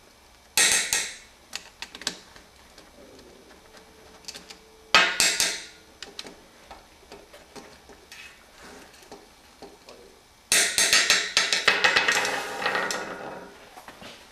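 Metal clinking and rattling as nuts are worked off the pillars of an old spring-driven brass clock movement. A sharp clink comes about half a second in, another about five seconds in, and a longer run of rattling clinks with a ringing tail from about ten and a half to thirteen seconds.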